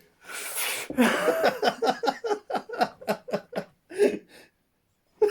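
A person laughing hard: a breathy gasp, then a long run of quick ha-ha pulses, about five a second, with a couple more near the end before it stops.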